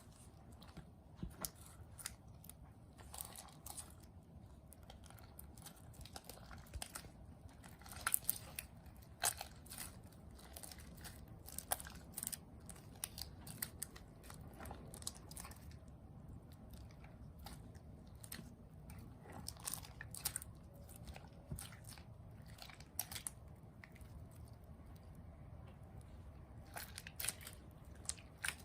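Slime being squeezed and stretched by hand: irregular sticky clicks, pops and crackles, over a low steady background hum.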